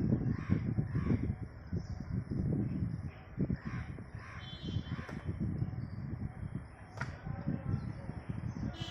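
Crows cawing, several short caws in the first five seconds, over a low, uneven rumble. A sharp click comes about seven seconds in.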